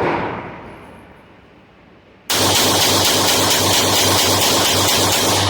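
Tisas PX9 Gen 3 9mm pistol fired rapidly at an indoor range: one sharp shot at the start, ringing away, then from about two seconds in a fast string of shots that merges into a continuous loud blast of noise.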